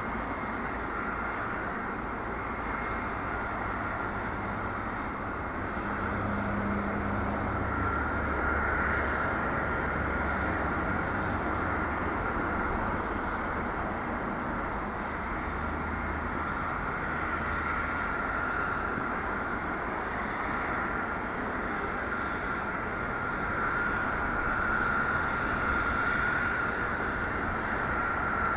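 Jet airliner's engines running at low power, a steady whine over a broad rushing noise that swells a little twice.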